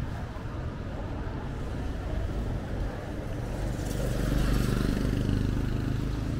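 Night street ambience with a steady low rumble; a motorbike's engine comes up and gets louder about four seconds in as it rides past.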